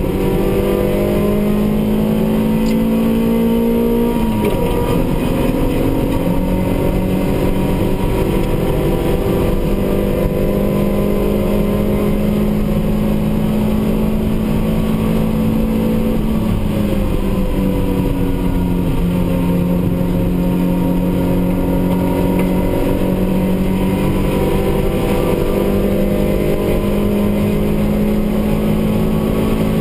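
Racing car's engine heard from inside its own cabin, running hard under load with its pitch climbing slowly. The pitch drops about four seconds in and again around sixteen seconds in, then climbs again.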